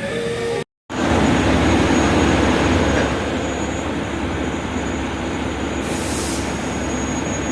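Steady, loud mechanical running noise, like a nearby engine or machine, with a constant hum. It starts right after an abrupt cut to silence under a second in, and a brief hiss comes about six seconds in.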